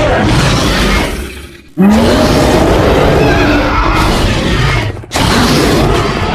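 Movie-style dinosaur roar sound effects: one roar fades out in the first second and a half, a new loud roar starts abruptly just under two seconds in with a short rise in pitch, and another begins about five seconds in.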